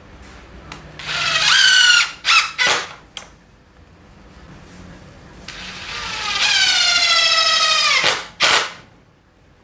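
DeWalt DCF787 cordless impact driver driving screws into plywood. There are two runs of motor whine that rise in pitch as it speeds up, one about a second in and a longer one from about five and a half to eight seconds. Each run is followed by short trigger blips to seat the screw.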